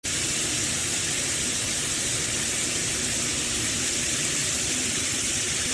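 Shower head spraying water in a steady, even hiss that starts and cuts off abruptly.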